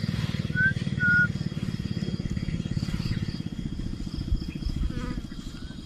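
A small engine running with a fast, even pulse, slowly fading. Two short high whistles sound about a second in.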